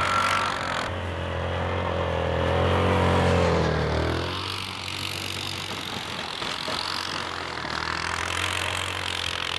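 ATV engine running under throttle, its pitch wavering up and down, cutting back suddenly about four seconds in. After that a quieter engine hum and a steady hiss continue.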